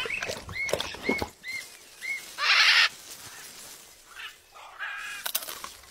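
Blue-and-yellow macaw calling: a few clicks at the start, then four short chirps that rise and fall. About two and a half seconds in comes a loud harsh squawk lasting about half a second, and a shorter pitched call follows near the end.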